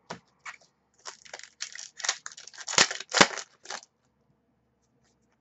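A foil trading-card pack being torn open and crinkled: a run of short rustling rips, with two louder sharp crackles about three seconds in, then it stops.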